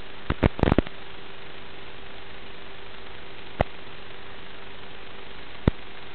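Steady static hiss from an analog FPV video receiver's audio channel, with a faint steady hum under it. Sharp crackling pops break through: a quick cluster in the first second, then single pops at about three and a half seconds and near the end.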